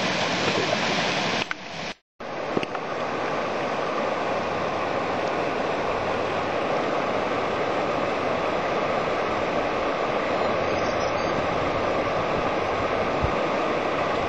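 Steady rushing noise, broken by a brief cut to silence about two seconds in.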